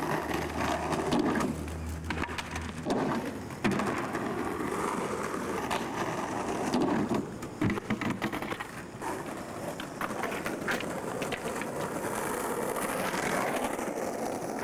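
Skateboard wheels rolling over plaza paving, broken by the sharp clacks of boards hitting the ground and the kicker ramps, including a board clattering loose onto a ramp after a bail.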